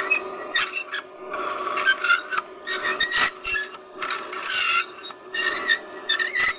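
Abrasive work on metal: irregular scraping and rasping strokes with a shifting squeal, over a steady motor hum.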